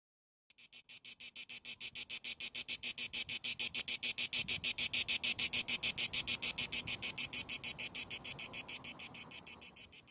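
Cicada song: a high, rasping buzz made of rapid even pulses, about six or seven a second. It starts about half a second in, swells to its loudest in the middle, then fades and stops at the end.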